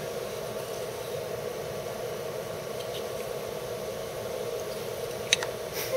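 Small electric cooling fans on a 3D printer whirring steadily, with one sharp click near the end.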